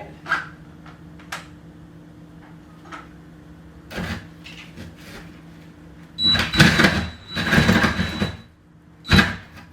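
A reciprocating saw is run in two short, loud bursts about six seconds in, with a steady high motor whine, and one more brief burst near the end. Before that come a few light knocks.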